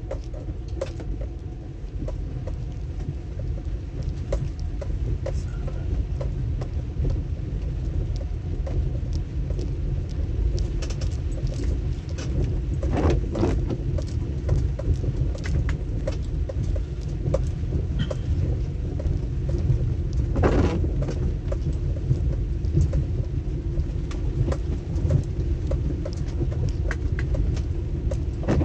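Car driving on a wet road, heard from inside the cabin: a steady low rumble of engine and tyres with a hiss of wet tarmac, and light scattered ticks and rattles throughout. Two brief louder bursts of noise come about halfway through and again about two-thirds of the way in.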